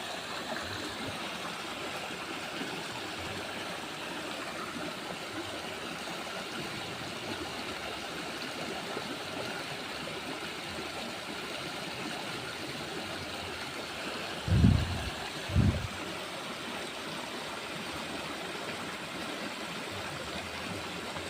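Steady rush of flowing water, with two short low thumps about two-thirds of the way through.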